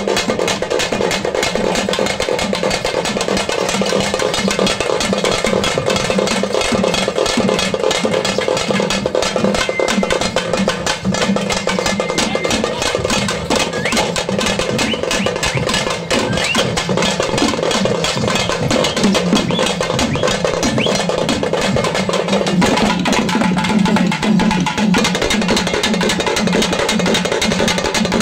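South Indian folk ensemble: thavil-style barrel drums struck fast and continuously with thin cane sticks, over a sustained melodic line from a reed wind instrument.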